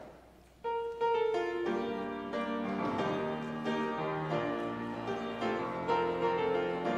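Piano postlude starting about half a second in, with a melody over chords, marking the end of the worship service.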